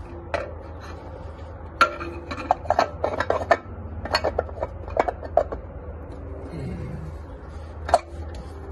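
Metal parts clinking and knocking as a component is worked by hand down into a 4L60E transmission case: a string of irregular clicks, with sharper knocks about two seconds in and near the end.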